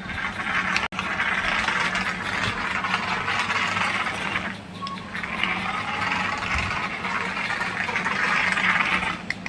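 Toy Vande Bharat train running with a steady whirring hiss over a low hum, in two stretches of about four seconds each with a short break about halfway through.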